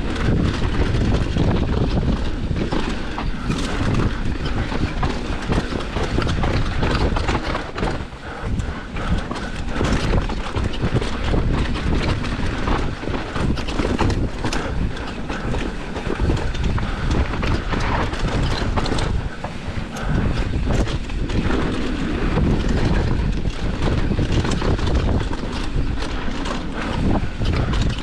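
Commencal Meta enduro mountain bike descending a rough, rocky trail at race speed: a continuous, irregular clatter of tyres hitting rocks and roots, chain slap and suspension knocks, over a steady low rumble of wind and trail noise.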